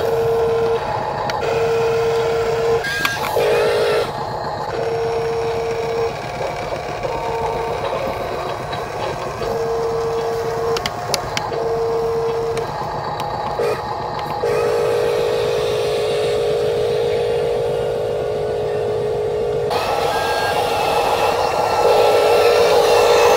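Small electric motors of RC construction models whining. The sound comes in short on-off bursts at first, then runs in longer steady stretches in the second half.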